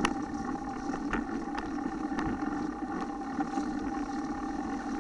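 Mountain bike rolling down a leaf-covered forest trail, heard from the rider's own camera: a steady rumble and hum of riding noise, with a few sharp clicks and knocks as the bike goes over bumps.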